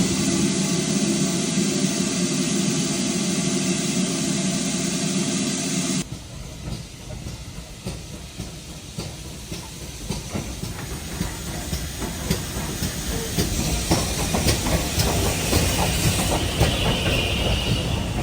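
Steam locomotive letting off steam in a loud steady hiss with a low hum under it, which stops abruptly about six seconds in. A quieter, uneven stretch of scattered clicks and knocks follows.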